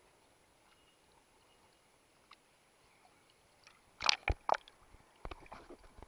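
Sea water splashing and sloshing against a camera held at the surface while swimming. Faint for about four seconds, then a few sharp splashes, and another cluster near the end.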